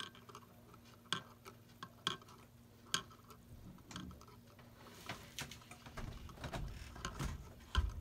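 Light clicks and taps of a metal wire hook and Zippo part knocking against a glass jar as they are moved about in nickel-plating solution, about one a second at first and closer together in the second half, over a faint steady hum.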